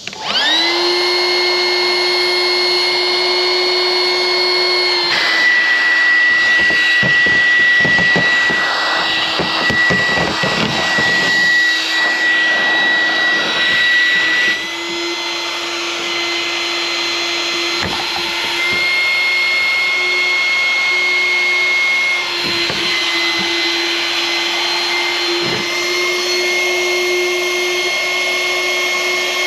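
An electric air-moving motor, such as a shop vacuum or blower, spins up with a rising whine and then runs steadily, loud and high-pitched. Its pitch drops slightly and comes back up several times, as the load on it changes. It is being used to push air through an A/C evaporator core to test it for a leak.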